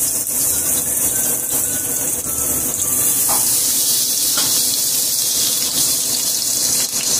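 Shell-on shrimp frying in hot oil in a nonstick pan: a steady sizzle.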